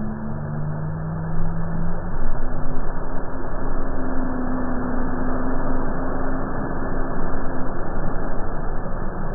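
Nissan Patrol's engine running hard under load through deep mud, its note stepping up about two seconds in, over the dense rush of mud and water being thrown by the tyres.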